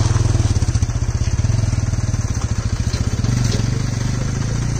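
HMT 3522 tractor's diesel engine running hard under load, hauling a fully loaded trolley up a slope; a loud, steady, even chugging.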